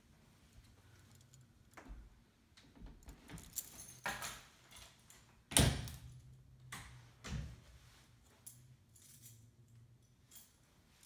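Scattered rattles, clicks and knocks from someone handling the phone and walking through the rooms, with the loudest knock about halfway through, over a faint low steady hum.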